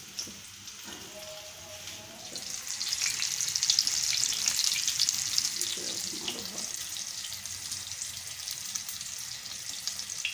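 Seekh kebabs sizzling in hot oil in a frying pan: a crackling, spitting hiss that swells about two seconds in and then settles.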